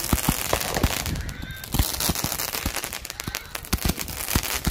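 A consumer fireworks cake firing: a rapid, irregular string of pops and crackles as coloured comets with crackling tails shoot up.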